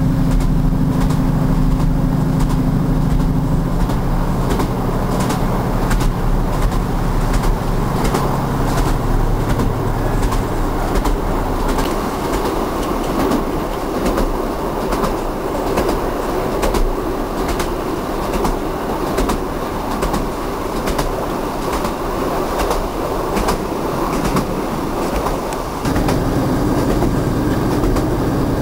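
Train running on jointed rail, its wheels clicking over the rail joints in a continuous clickety-clack over a steady rumble. A low hum at the start fades away over the first several seconds and comes back suddenly near the end.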